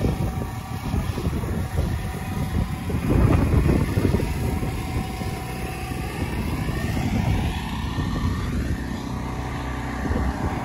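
A vehicle engine running, loudest about three to four seconds in, with a faint rising whine partway through.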